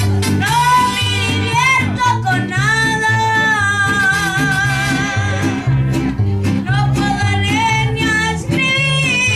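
Mexican ranchera-style song: a high voice sings long, wavering notes with heavy vibrato over guitar and a bouncing bass line.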